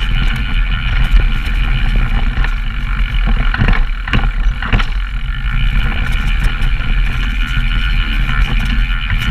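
Downhill mountain bike descending a dirt trail, heard from cameras riding along: a continuous loud rush of tyres, bike rattle and wind on the microphones, with a few sharp knocks near the middle.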